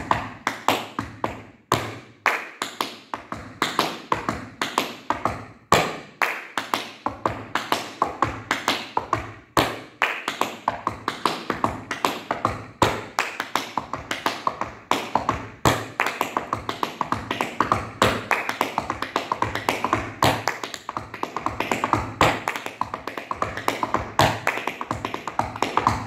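Tap shoes striking a wooden floor in a flap heel-heel combination: a fast stream of sharp taps, several a second, with brief breaks between phrases.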